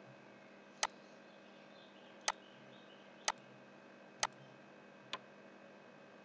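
Computer mouse button clicking five times at irregular intervals of about a second, the last click fainter, as faces are selected in CAD software. Under the clicks is a faint steady hum.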